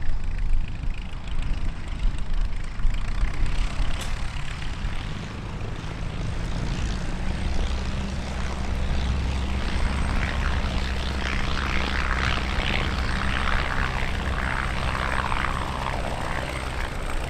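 Piston-engined propeller aircraft running with a steady low engine drone. A hissing rush of propeller and air noise builds in from about ten seconds in.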